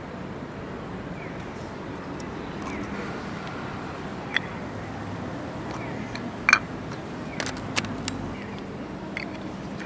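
Steady street background hum. Over it, a string of sharp clicks and taps from about the middle onward, the loudest about six and a half seconds in, as a Canon EF 50mm lens and its plastic caps are handled and fitted to a Canon DSLR body.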